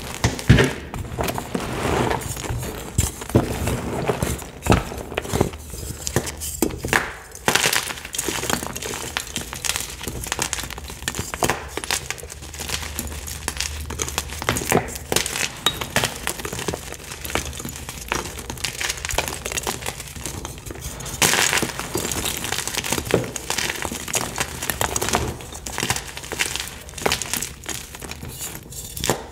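Fresh Picsil gym chalk blocks being squeezed and crushed by hand into loose powder: a dense run of crisp crunches and snaps, with a louder crumbling burst about three-quarters of the way through.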